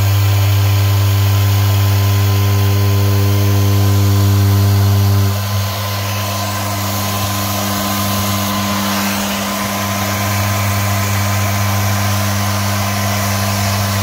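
Electric car polisher running with its pad on car carpet, a loud steady motor hum as the pad vibrates against the pile to shake loose embedded sand. About five seconds in, the tone changes and the level dips slightly, then holds steady again.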